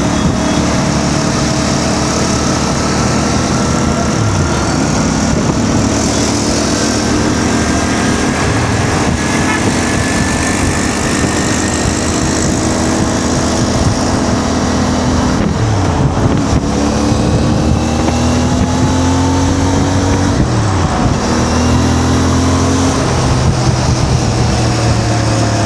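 CF Moto 450 MT motorcycle's parallel-twin engine running under way, its note falling and climbing several times as the throttle and gears change, over a steady rush of wind.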